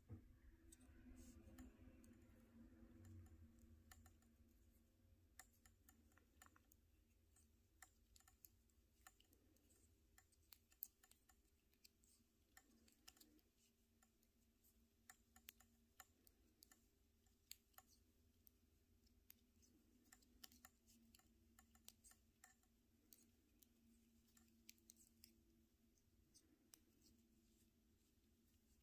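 Faint, irregular clicking of size 7 metal knitting needles tapping together as stitches are knit across a row, over a faint steady hum.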